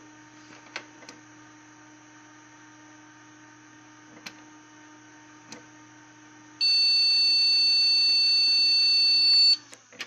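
Desktop PC running with a steady hum; about six and a half seconds in, its motherboard speaker gives one long beep of about three seconds, the BIOS error beep for missing RAM. The beep and the hum cut off together as the PC is switched off, followed by a click.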